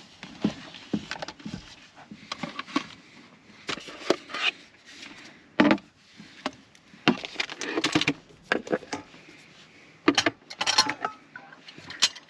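Cooking gear and food being handled and set out: irregular knocks, clinks and rustling.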